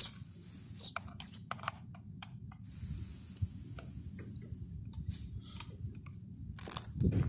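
Air hissing out of a motorcycle tyre's valve in spurts as it is deflated, with a metal tool clicking against the valve and rim. Wind rumbles on the microphone.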